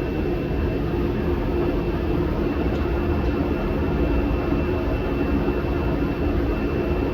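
Steady drone of a forced-air shop heater running, with a faint constant high whine over it.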